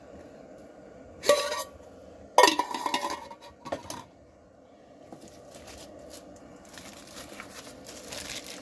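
Lightweight metal camping pots clattering and clinking with a short ring as they are handled and set down, two loud clatters and a smaller clink in the first four seconds. Near the end, a plastic bag rustles as a mug is handled in it.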